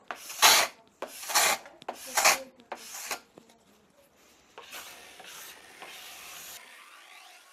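Scraper drawn along the base of a Fischer cross-country ski, stripping off the factory transport paraffin wax with light pressure. Four short scraping strokes about a second apart, then a fainter, longer scrape.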